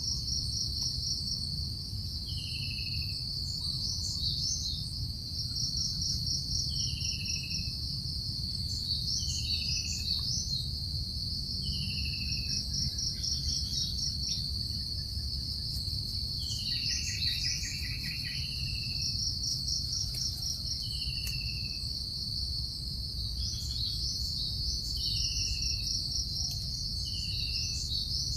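Insects trilling steadily at a high pitch, while a bird repeats a short falling whistle every second or two, with a few other high chirps; a low rumble runs underneath.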